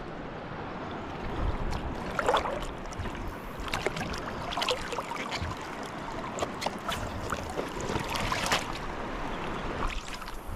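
Small waves lapping and sloshing along the shore, a steady wash with a scatter of irregular small clicks and taps over it from about two seconds in.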